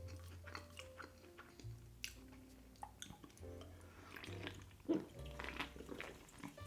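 Soft background music with held bass and melody notes, under scattered small clicks and wet smacking of messy eating by hand: picking at saucy Cajun seafood and chewing. The sharpest click comes about five seconds in.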